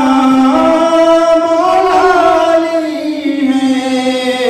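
A man singing devotional verse without accompaniment, holding long notes that slide slowly in pitch.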